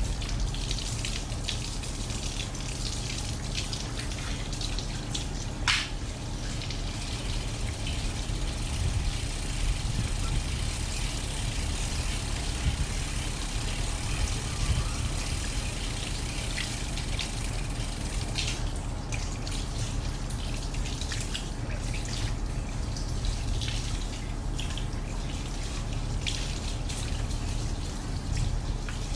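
Water from a shower hose spraying onto a bicycle's rear wheel and drivetrain, spattering and dripping onto a wet tiled floor, with a sharper spatter about six seconds in.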